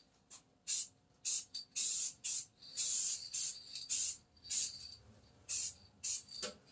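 Aerosol can of gloss black enamel spraying in about a dozen short hisses of under half a second each, stopping and starting as a coat of paint goes on.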